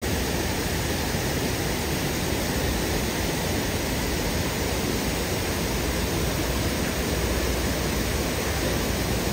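Water of a river cascade rushing steadily over rocks, a dense, even noise with no breaks or pauses.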